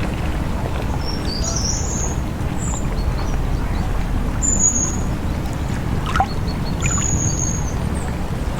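Lakeside ambience: a steady low rush of water with birds chirping, short high calls coming every second or two, and a brief knock about six seconds in.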